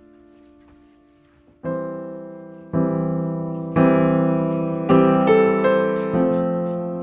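Background music: soft piano chords fading to near quiet for the first second and a half, then new chords struck about once a second, with a light ticking beat coming in near the end.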